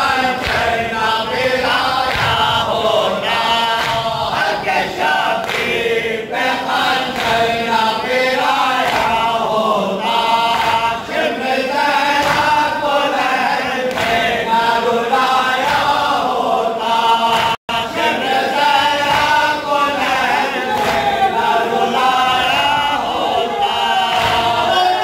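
A group of men loudly chanting an Urdu noha (Shia lament) in unison, with rhythmic chest-beating (matam) underneath. The sound cuts out for an instant about two-thirds through.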